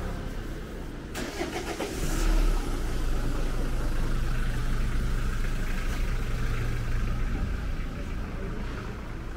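A motor vehicle engine, louder from about two seconds in, running with a steady low hum that fades out near the end.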